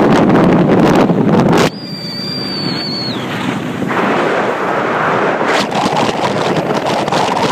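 Wind rushing over the microphone aboard a speedboat under way, with the boat's engine and the water beneath it. The rush drops off abruptly about two seconds in, leaving a brief high whine that falls away, then builds again.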